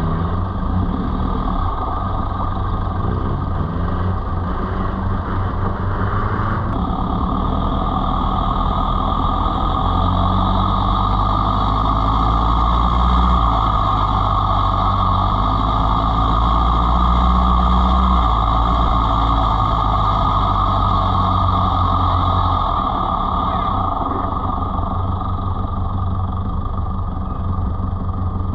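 Off-road 4x4 engine running continuously as the vehicle drives, its low hum shifting up and down in steps every few seconds with throttle and load, over steady road and tyre noise.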